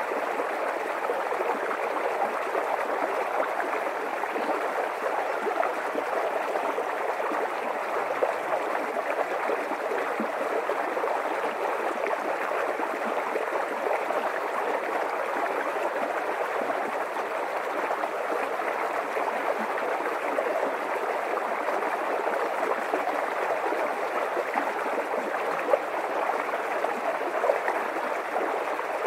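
A small creek running steadily, a continuous babble of water over stones.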